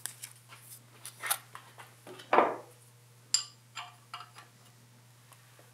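Light clicks and taps of small metal objects being handled on a bare diesel engine block, with one louder clunk about two and a half seconds in as a spool of solder is set down on the block's deck. A steady low hum runs underneath.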